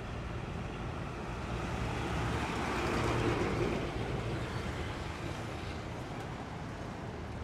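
Road traffic: a steady low diesel rumble from a bus and trucks moving off, with a car passing close that swells to loudest about three seconds in and then fades.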